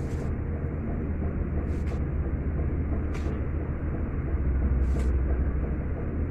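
Steady low outdoor rumble, with a few light clicks as small stones are gathered off the lawn, about two, three and five seconds in.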